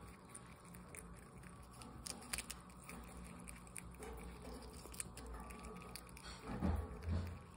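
Prairie dog nibbling and chewing a cabbage leaf: many small crisp crunching clicks, with two louder bumps near the end.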